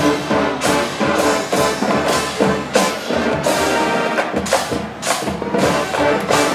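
High school marching band playing its field show: brass holding loud chords while the percussion hits sharp accents about once or twice a second.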